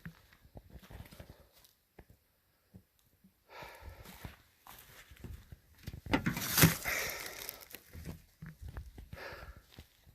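Camping gear being handled and packed: rustling fabric and nylon with scattered small knocks, and a louder swishing rustle a little past halfway.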